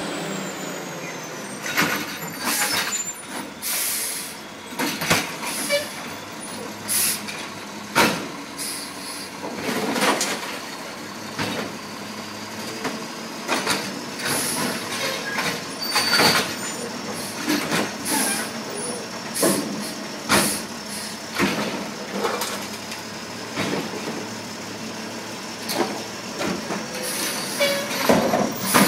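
Automated side-loading garbage truck with a natural-gas engine emptying wheelie carts: the engine runs steadily under repeated clanks and bangs of the lifting arm and carts, with short air hisses between them.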